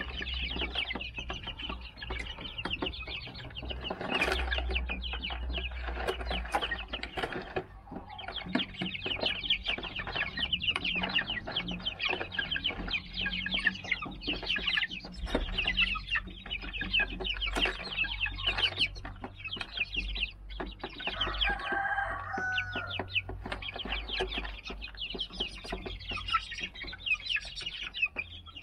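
Young silver laced Wyandotte chicks, 39 days old, peeping and cheeping in a constant chorus of short high notes. About 21 seconds in, one bird adds a lower, wavering call lasting a couple of seconds.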